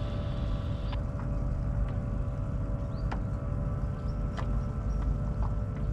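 A steady engine drone over a low rumble of wind and water, with a few faint clicks.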